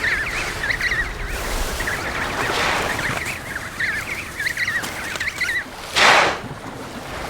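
A crowd of penguin chicks calling, with many short, wavering, high whistles overlapping. About six seconds in, a brief loud rush of noise rises over them.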